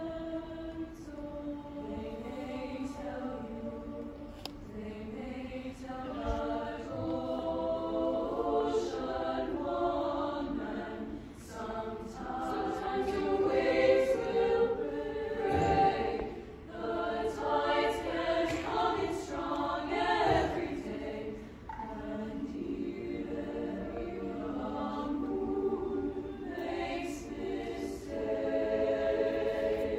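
Women's choir singing, its sustained sung phrases swelling louder toward the middle and easing back.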